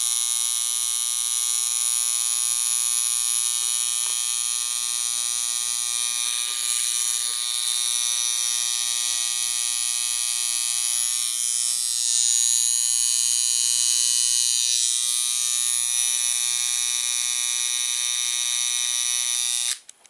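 General Electric flip clock's electric alarm buzzing loudly and continuously, then cut off abruptly near the end when the alarm switch is pushed.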